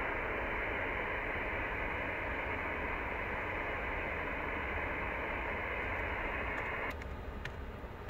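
Icom IC-7600 transceiver's receiver hiss on the 15 m band, held within its 3 kHz passband. About seven seconds in the hiss cuts off abruptly, with a few sharp clicks, as the rig switches over to transmit an FT8 signal.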